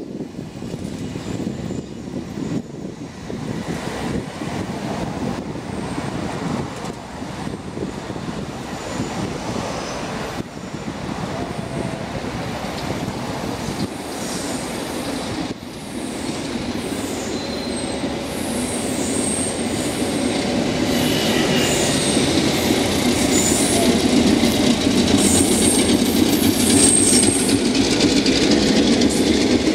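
A local passenger train hauled by a China Railways DF11 diesel locomotive approaches and rolls past, its rumble growing steadily louder over the second half. Short high-pitched wheel squeals come in as the green passenger coaches pass close by.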